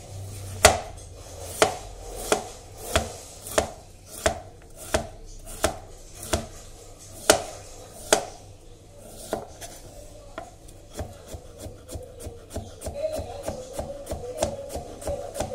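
Kitchen knife chopping pumpkin strips into pieces on a cutting board: sharp knocks of the blade through the flesh onto the board, evenly spaced at about one and a half a second, becoming quicker and lighter in the last few seconds.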